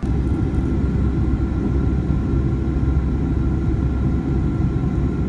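Cabin noise of an airliner in flight: a loud, steady rumble of engines and rushing air, with faint steady tones above it.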